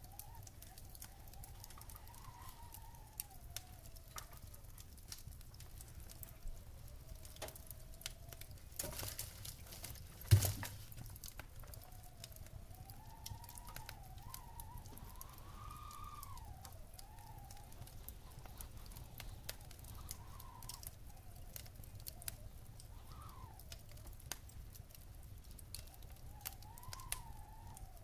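Wood fire crackling in a fireplace, with scattered small pops and one sharp, loud pop about ten seconds in, over a low rumble. A faint whistling tone slowly rises and falls behind it.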